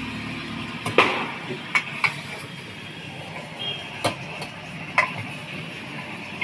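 A metal spoon stirring chicken masala in a small aluminium pressure cooker, scraping and clinking sharply against the pot a handful of times over a steady sizzling hiss.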